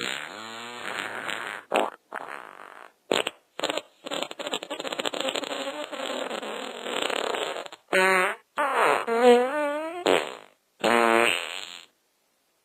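A rapid string of fart sounds, one after another: a long sputtering one, a few short sharp blasts, a long airy one, then several pitched, wobbling ones near the end.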